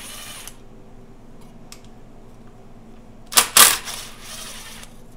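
Cordless impact driver running in short bursts on radiator hose-clamp screws. A faint tail dies away in the first half second, then there is one loud burst of about half a second a little past three seconds in, trailing off over the following second.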